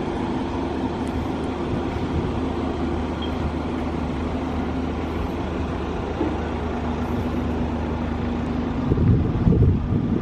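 A steady low mechanical hum with a few held low tones, joined about nine seconds in by wind buffeting the microphone.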